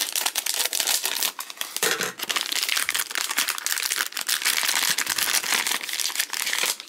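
Printed plastic hockey card surprise bag crinkling continuously as it is handled and opened by hand, a dense crackly rustle of fine clicks.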